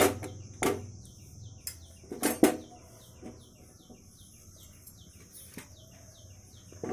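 A bird calling in short falling chirps, about three a second, over a steady high hiss. A few louder knocks come in the first couple of seconds.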